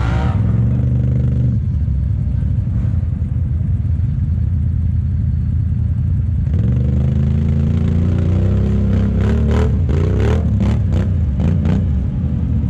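ATV engines: one idling steadily close by, while another four-wheeler revs as it climbs a muddy bank out of the pit, its pitch rising from about six seconds in and then surging in a rapid run of sharp revs near the end.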